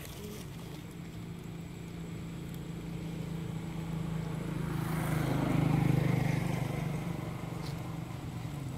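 A motor vehicle's engine droning steadily. It grows louder to a peak about five to six seconds in, then fades as it passes by.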